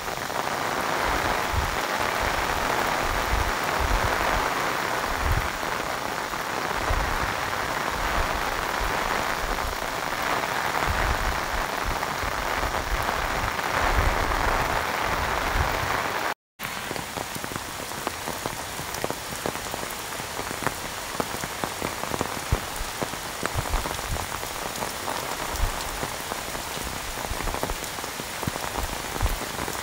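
Heavy monsoon rain pouring onto the open water of a reservoir: a dense, steady hiss with irregular low rumbles beneath it. About halfway through, the sound drops out for a moment and then comes back as a lighter, quieter rain hiss.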